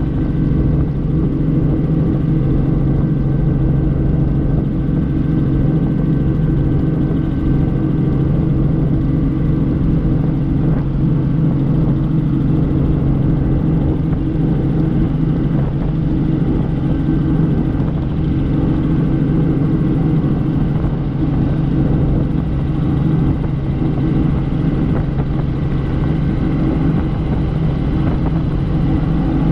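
Helicopter in steady flight, its rotor and engine running at a constant pitch: an even, unchanging hum made of several steady low tones.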